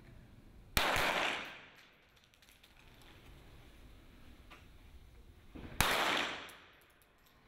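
Two .22 rimfire sport pistol shots about five seconds apart. Each is a sharp crack that rings out in the hall for about a second.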